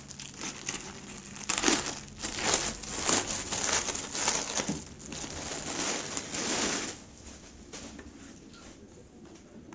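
A clear plastic bag crinkling and rustling as hands open it and pull a folded T-shirt out, the rustling dying down about seven seconds in.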